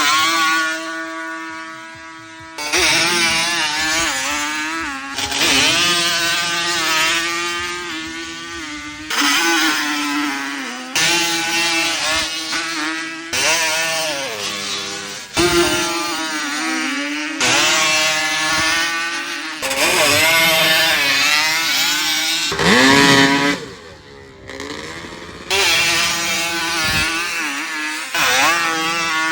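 Yamaha Banshee 350's twin-cylinder two-stroke engine revved over and over, the pitch climbing and falling in bursts every couple of seconds, with a short drop to low revs about two-thirds of the way through.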